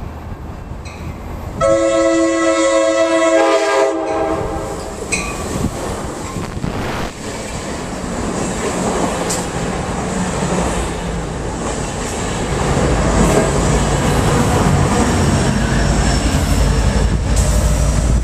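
Amtrak Pacific Surfliner passenger train: its horn sounds a multi-note chord for about two seconds, starting about two seconds in. Then the bilevel cars roll past with a steady rumble and wheel clatter, and the diesel locomotive pushing at the rear grows louder near the end.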